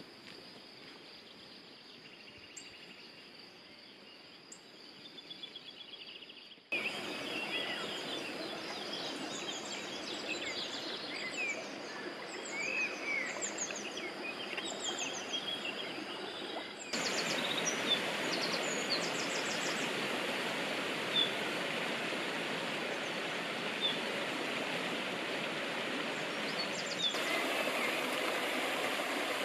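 Countryside ambience: faint bird calls at first, then birds singing over the steady rush of a shallow stream. The stream grows louder in the later part, with occasional bird chirps.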